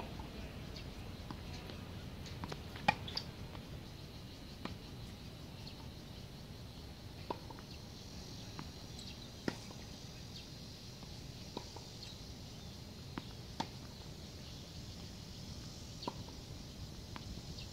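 Tennis ball struck by rackets and bouncing on a hard court during a rally: sharp single pops every one to two seconds over a steady outdoor hiss.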